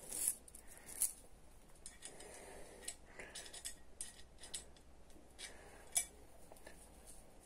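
Faint metallic clinks and light rattles of a motorcycle timing chain and camshaft sprocket being handled, as a new chain is wrapped over the sprocket. A sharper click comes about a second in and another about six seconds in.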